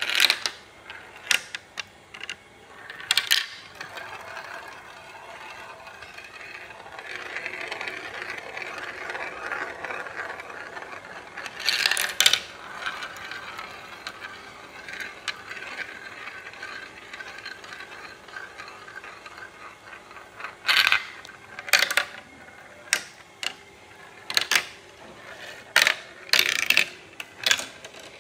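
Glass marble rolling and whirring around plastic funnel bowls of a marble run, with sharp clicks and clacks as it drops through the tubes and lands on the plastic tracks; the clacks come thick and fast near the end.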